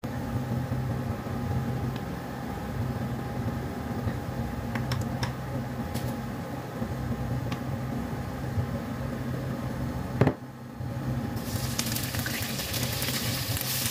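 A steady low hum with a few faint clicks, and a sharp knock about ten seconds in. Then hot oil in a wok starts sizzling as dried fish goes in to fry.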